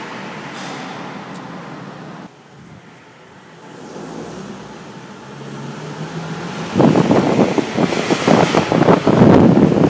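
Nissan 370Z making a steady hiss, then from about seven seconds in a loud, rapid run of metallic clicking and rattling.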